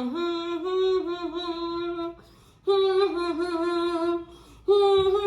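A woman singing a wordless tune, holding long notes in three phrases with short pauses between.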